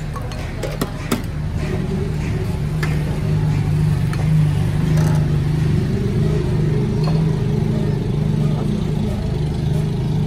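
A motor engine running steadily close by, getting louder about three seconds in. A few sharp clinks of a steel ladle against bowls near the start.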